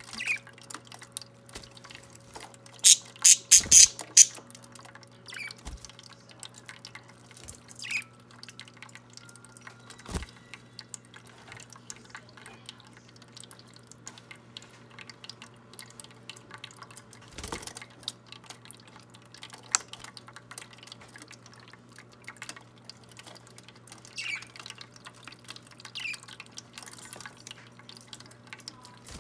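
Small electric water fountain trickling and dripping over a steady low hum, with parakeets chirping now and then. About three seconds in comes a quick run of four loud, shrill squawks.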